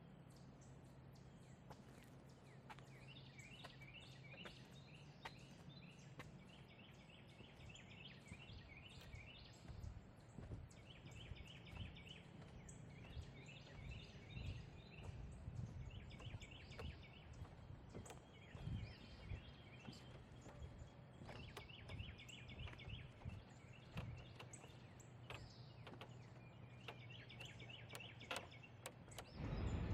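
A songbird singing short, rapid trilled phrases over and over, faint. Soft low thumps come in from about a third of the way through.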